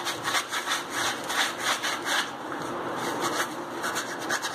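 A green scouring pad scrubbed hard against a wet, soap-soaked tea strainer, in quick rhythmic scraping strokes, several a second, to scour off tea stains.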